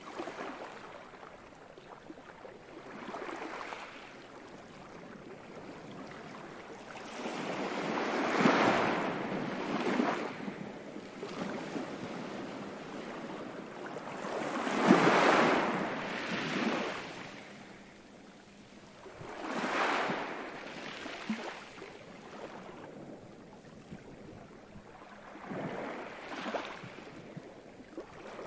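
Ocean waves breaking and washing back, a rushing hiss that swells and fades over a couple of seconds, repeating every few seconds.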